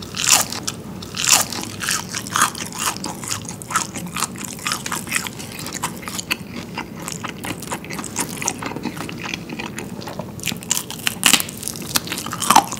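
Close-miked crunching and chewing of freshly fried chicken wings with a thin, crisp batter: a loud crunchy bite just after the start, steady crackly chewing, then fresh loud crunches near the end as another wing is bitten.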